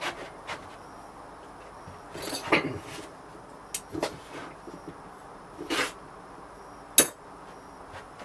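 Scattered handling noises: a few short scraping swishes and several sharp knocks or clicks, the loudest a sharp click about seven seconds in.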